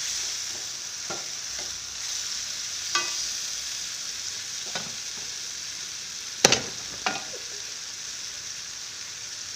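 Chili sambal frying and sizzling in a wok while a metal ladle stirs it, with a few sharp clinks of metal on the wok; the loudest clink comes about six and a half seconds in.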